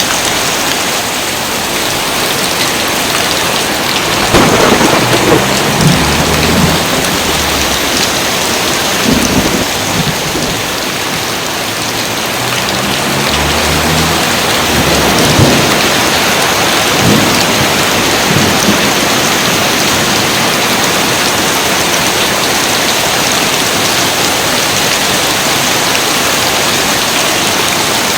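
Steady heavy rain, with thunder rumbling twice: once about four seconds in and again around thirteen seconds in, with a few sharp cracks between.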